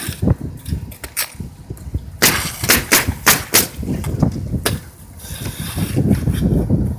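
A run of sharp knocks, about five in a second and a half, with scattered single knocks and low rumbling handling noise around them, from roofing work.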